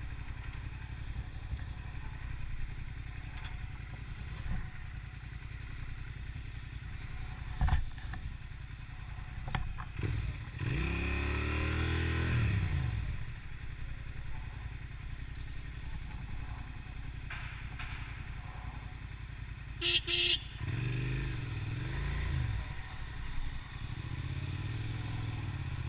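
Motorcycle engine running on the move, rising in pitch and falling back again about halfway through and once more a little later, as the throttle is opened and eased off. About two-thirds of the way through come two short sharp bursts close together.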